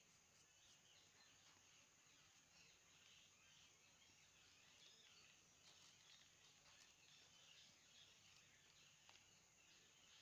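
Near silence: faint rural outdoor ambience with faint bird and insect calls.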